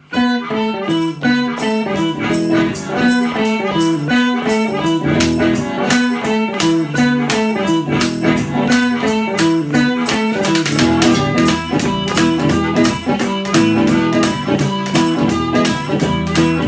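Instrumental Chicago-style blues: an electric guitar plays a repeating boogie riff over a steady washboard beat at about two strokes a second.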